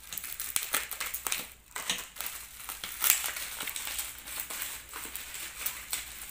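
Black plastic packaging crinkling and crackling in an irregular run as it is cut open with scissors and pulled apart by hand.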